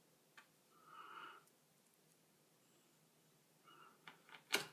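Near silence, with a faint breath about a second in and a few small sharp clicks near the end, from a small screwdriver working tiny screws into the laptop's underside.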